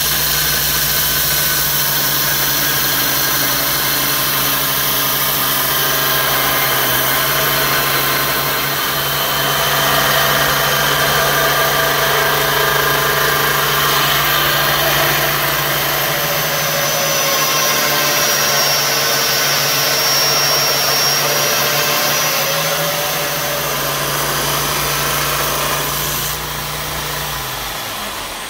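Belt grinder running steadily while the steel edge of a knife blank cut from an old saw blade is ground against the abrasive belt, throwing sparks. Near the end the motor is switched off and the belt winds down.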